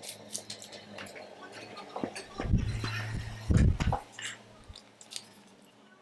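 A person drinking from a bottle close to the microphone: small wet mouth and bottle clicks, then two loud gulps of swallowing about two and a half and three and a half seconds in.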